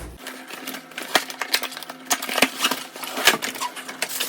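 Ring-light packaging and parts being handled and pulled out of the box: irregular clicks, knocks and rustling, with sharper knocks about a second in and again about three seconds in.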